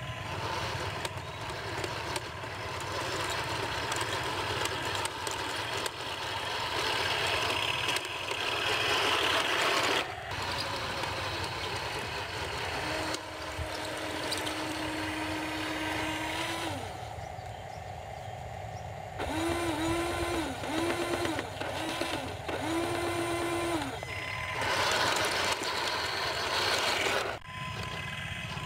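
Heng Long 1:16 RC Tiger I tank driving over dirt and wooden slats, with its drive motors and gearboxes whirring steadily and its tracks rattling. About halfway through comes a held tone, then a run of short beeps.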